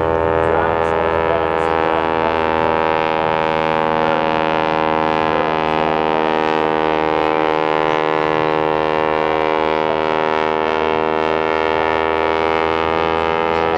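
Steady engine drone, one even hum made of many tones that holds the same pitch throughout.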